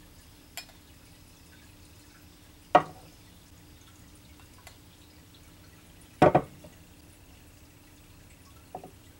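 Liquor poured from a glass decanter into shot glasses: a faint trickle, broken by a few sharp knocks of glassware. The loudest knocks come about three seconds in and again, doubled, about six seconds in.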